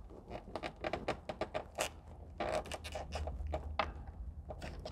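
Hands and a plastic trim pry tool tucking a thin cable in behind a car's headliner edge and rubber door seal: a run of small irregular scratches, clicks and rubbing of plastic, rubber and cable.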